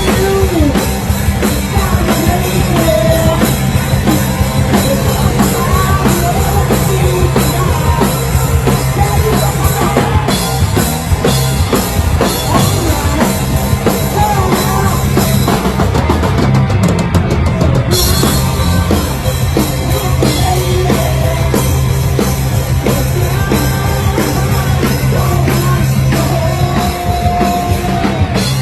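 Stoner rock band playing live and loud: a drum kit driving under heavy, distorted electric guitar and bass.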